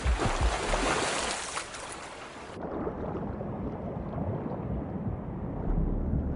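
Sea water splashing and sloshing at the surface. About two and a half seconds in it cuts off abruptly, leaving a muffled, low underwater rumble.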